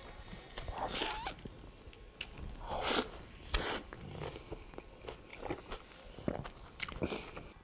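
A person biting into and chewing a steak taco wrapped in a fresh, charred flour tortilla: irregular wet chewing and mouth noises, loudest about three seconds in.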